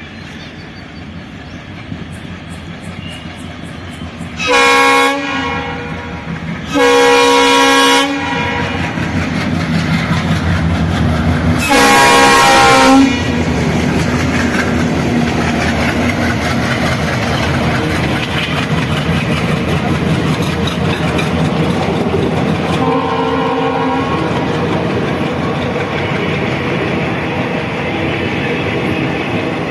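Twin WDG3A Alco diesel locomotives sounding their multi-tone horn: a short blast, then two longer ones, the third the loudest, and a weaker fourth blast near the end. Beneath the horn the engines' chugging and the train's rolling noise grow louder as the train accelerates past and stay loud.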